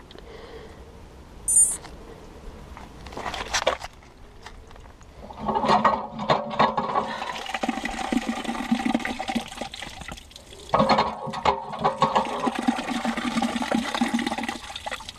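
Water gushing from a green metal drinking fountain in two spells, about five seconds and then about four, with a short break between. A few sharp knocks come before the water starts.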